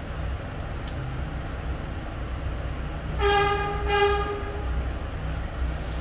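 New York City subway train running with a steady low rumble; about three seconds in, a train horn sounds two short blasts back to back.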